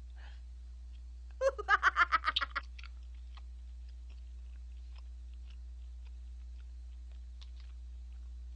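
A man laughing in a short burst of about ten quick pulses with a mouthful of spicy rice cake, about a second and a half in, then chewing with faint scattered clicks.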